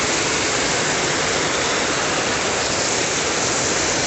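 Heavy rain pouring down in a steady, even rush, with no wind.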